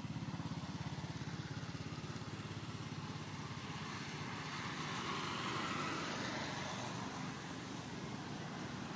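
A small engine running at a steady, rapid pulse, with a broader rushing noise that swells and fades in the middle.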